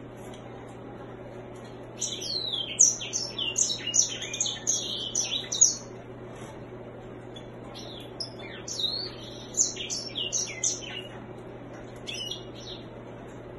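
Grey singing finch (white-rumped seedeater, Serinus leucopygius) singing. Its song comes in two long phrases of quick, varied twittering notes, the first about two seconds in and the second about eight seconds in, with a short snatch near the end. A faint steady hum lies underneath.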